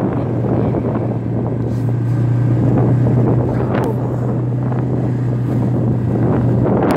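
Tractor-trailer engine running as a steady low drone while the truck passes, dying away near the end, with wind buffeting the microphone.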